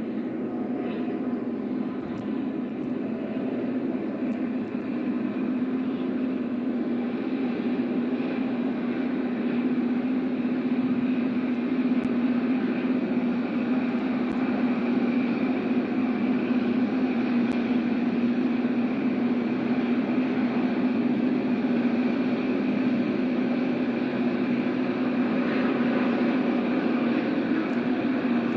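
Rail grinder running on the track, a steady harsh roar of grinding stones and engines with a low hum, slowly growing louder.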